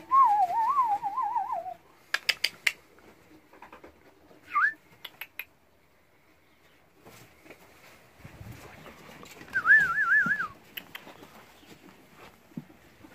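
Wavering, warbling whistles: a long one at the start, a short rising one around four and a half seconds in, and another, higher warble about ten seconds in. A quick run of sharp clicks falls about two seconds in.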